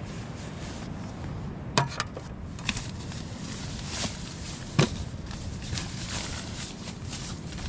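Camp cooking kit being handled: a few sharp knocks and clicks, the loudest about two seconds in, over a steady rushing background.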